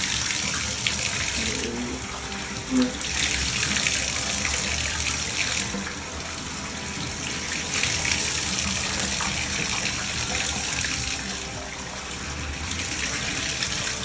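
Running water splashing into a bathtub and over a wet French bulldog as it is rinsed and rubbed by hand; the flow swells and eases several times.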